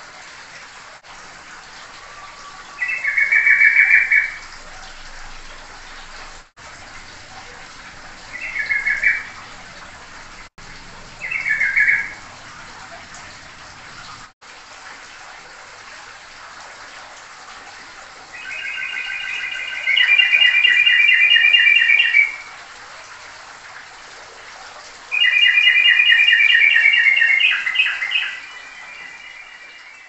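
Caged songbird calling: short chirping phrases about a second long, a few seconds apart, then two longer rapid trilled phrases of three to four seconds each in the second half.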